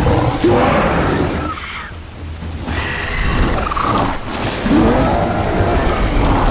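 Film monster-fight sound effects: a giant ape's roars and grunts, several in turn, over heavy water splashing and a low booming rumble.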